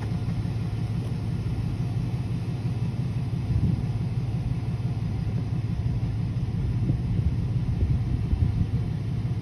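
Wind buffeting the microphone: a steady low rumble that flickers unevenly throughout.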